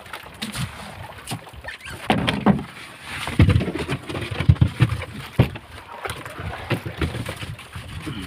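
Chunks of ice knocking and scraping together as hands dig through them in a boat's fish hold: irregular clunks, several in quick clusters, with no steady rhythm.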